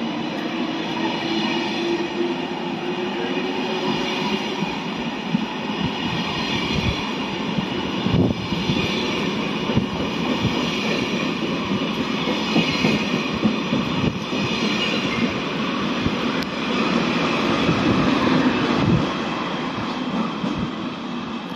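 SNCF TGV inOui double-deck high-speed trainset pulling out and gathering speed past the platform. A whine rises in pitch over the first few seconds, the wheels click over the rail joints now and then, and the sound is loudest near the end as the rear power car goes by.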